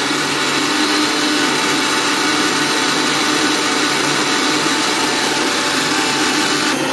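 Prestige electric mixer grinder running at full speed, its steel jar grinding chopped ginger with salt and no water: a loud, steady whirring. The sound dulls slightly near the end.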